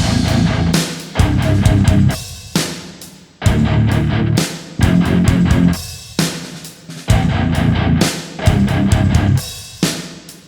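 Heavy rock music with electric guitar and drums: loud chord hits that ring out and fade, repeating every second or two.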